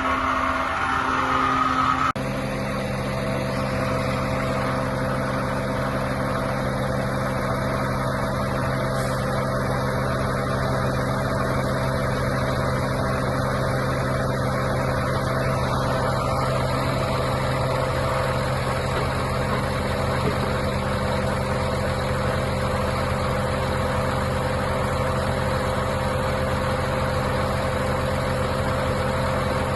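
Mercedes-Benz Actros 3241 truck's diesel engine running steadily at an even speed. It follows a different steady hum that cuts off about two seconds in.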